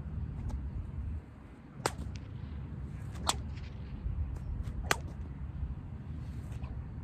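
An 8-foot kip-hide bullwhip cracking three times, sharp single cracks about a second and a half apart.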